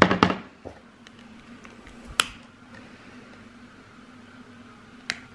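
A few sharp clicks from a long utility lighter and a square glass candle jar being handled while the candle is lit: one strong click about two seconds in and another near the end, over a faint steady hum.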